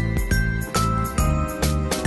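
Background music: a light, tinkling bell-like melody stepping down in pitch over a steady beat of about two strikes a second.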